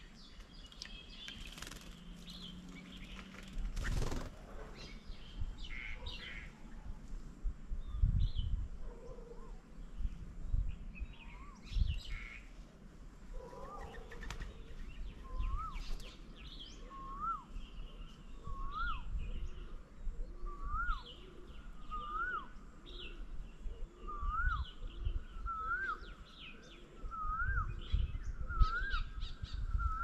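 Birds calling at a bird table, with assorted high chirps. From about a third of the way in, one bird repeats a single quick up-and-down note about every second and a half, the series climbing in pitch and growing louder. A few low thumps stand out, the loudest near the middle and near the end.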